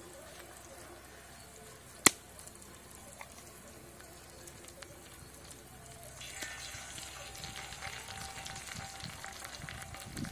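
Eggs frying in oil on a large flat griddle, a light sizzle that grows louder about six seconds in as a second egg is poured onto the hot surface. A single sharp tap about two seconds in is the loudest sound.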